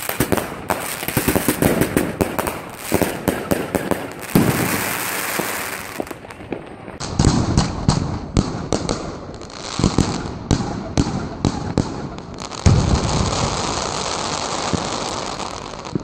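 Weco Scorpion firework battery firing: a fast run of launch thumps and small bangs as its gold-tailed shots break. There are two stretches of steady hiss, one about four seconds in and a longer one near the end.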